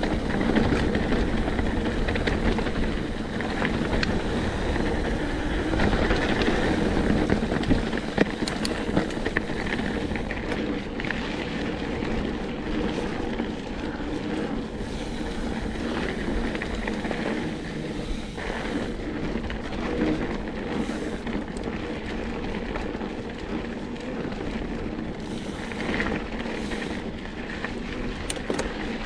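Mountain bike rolling along a dirt singletrack trail: steady tyre rumble with rattles and clicks from the bike and scattered ticks, and wind on the microphone.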